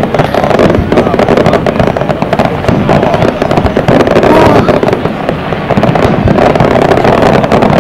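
Fireworks display: aerial shells bursting one after another, with many sharp cracks running through a loud, continuous rumble.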